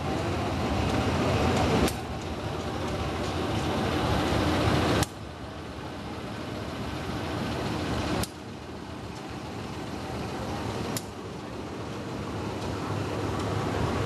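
Diesel locomotive engine running steadily, a continuous noisy rumble. Its level creeps up and then drops suddenly every three seconds or so.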